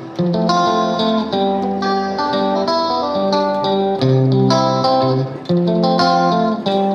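Background music: a plucked guitar tune with a repeating pattern of notes.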